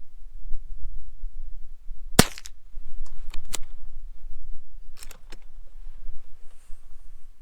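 .22 rifle firing a single shot about two seconds in, a sharp crack. Several fainter sharp clicks follow about a second and three seconds later.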